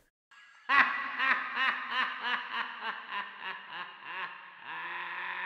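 A high-pitched laugh: a quick run of 'ha-ha-ha' pulses, about five a second, that slowly fades, ending in a long held note near the end.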